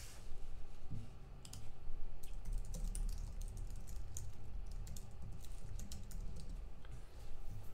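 Typing on a computer keyboard: a run of quick, irregular key clicks over a low steady hum.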